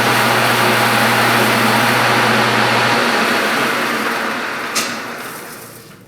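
Metal lathe turning an aluminium flywheel hub: a steady motor hum under a loud hissing cutting noise. About three seconds in the hum stops and the sound dies away over the next few seconds, with a sharp click near the end.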